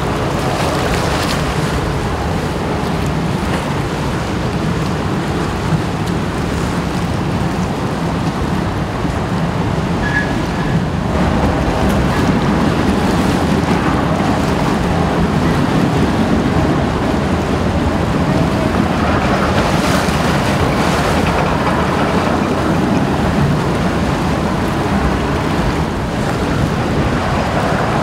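Car ferry's engines and propellers churning the sea, mixed with waves and strong wind on the microphone. The churning gets louder about eleven seconds in as the ship comes close.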